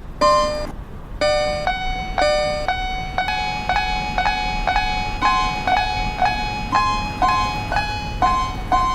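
Level crossing warning bell ringing in a steady, repeated "kan-kan", about two bright pitched strikes a second, the tone shifting a little from strike to strike.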